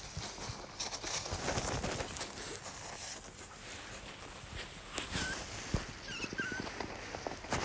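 A pet otter clambering over a person's padded jacket close to the microphone: fabric rustling and claw scrabbling, with a couple of faint short squeaky chirps about five and six seconds in.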